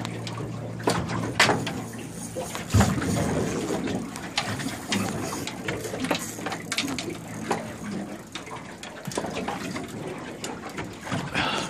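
Water sloshing and splashing against a small boat's hull, with scattered knocks and clunks.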